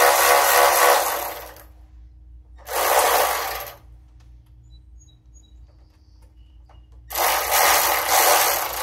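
Power driver running bolts home in three bursts: one lasting about a second and a half at the start, a short one about three seconds in, and a longer one near the end. It is driving in the radiator's mounting bolts.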